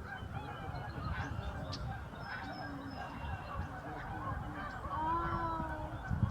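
A large flock of migrating geese calling, many honks overlapping into a steady din, with one nearer, drawn-out call about five seconds in.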